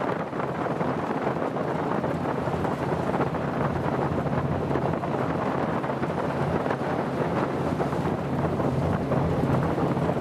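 Wind buffeting the microphone in a steady rush, with a low, even drone underneath.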